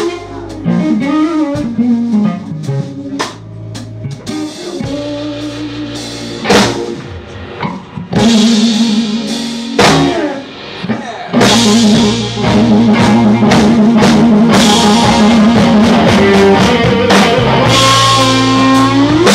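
Live blues-rock band: a Les Paul-style electric guitar plays a lead solo over drum kit, bass and keyboard. The guitar bends notes near the start, plays a fast trill in the middle, and makes a long rising bend near the end. The band gets louder about eight seconds in, with cymbals joining.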